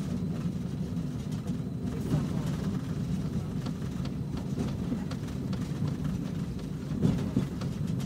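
Interior of a moving tram: a steady low rumble from the running gear on the rails, briefly louder near the end.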